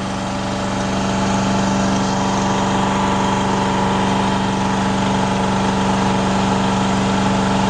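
Engine of an Amtex Marine 4047 APO unit running at a steady speed, a constant even drone with no change in pitch, heard from about 25 feet away.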